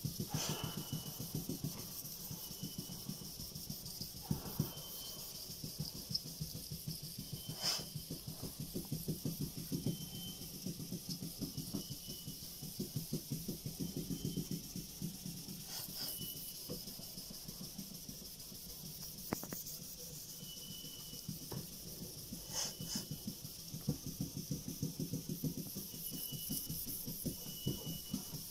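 Sandpaper rubbed by hand over a cured gelcoat surface in quick, even back-and-forth strokes: fine-grit (2000) finish sanding of a gelcoat repair.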